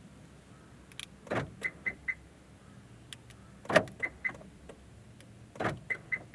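Car central door-lock actuators clunking three times as the remote key fob's buttons are pressed, each clunk followed by two or three short high pips.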